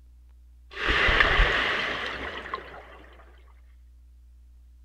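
Penguin sound clip: a single breathy, hissing burst without a clear pitch that starts abruptly and fades away over about two and a half seconds.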